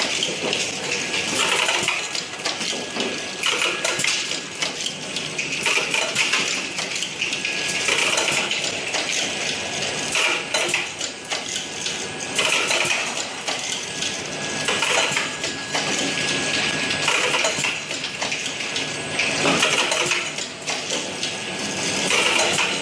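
Capsule bottle packing line running, with the capsule counter, cap elevator and capping machine working together. Small plastic parts clatter without a break, a dense rapid clicking that swells and eases every second or two.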